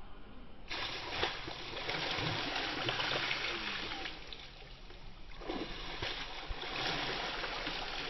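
Water splashing as hands are swept through a shallow river, thrown up in spray, over the steady rush of the river. The splashing starts about a second in, eases off briefly past the middle, then picks up again.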